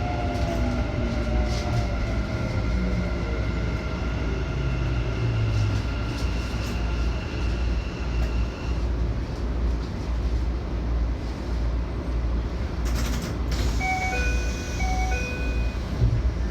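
Keikyu electric train running, heard from inside the front car: a steady rumble of wheels and motors with electric motor whine. A tone falls at the start and higher tones hold steady until about halfway. A brief loud burst of noise comes about 13 s in, then short stepped electronic tones near the end.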